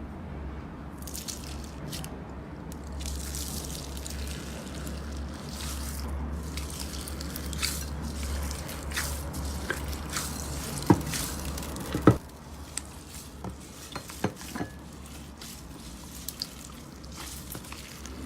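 Slime being squeezed and handled: wet squishing and small crackles, with two sharp pops about 11 and 12 seconds in. A low hum runs underneath for the first two-thirds, then stops.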